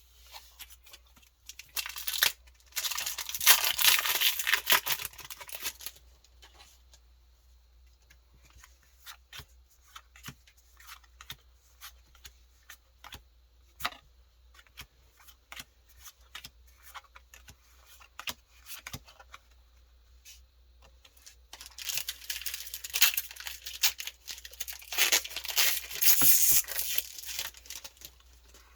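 Foil booster-pack wrappers of Pokémon trading cards being torn open and crinkled, twice: once about two seconds in and again late on. In between come light scattered clicks of cards being handled.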